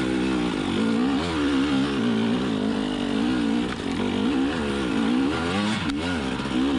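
2020 KTM 300 XC TPI two-stroke single-cylinder dirt bike engine revving up and down over and over as it is ridden.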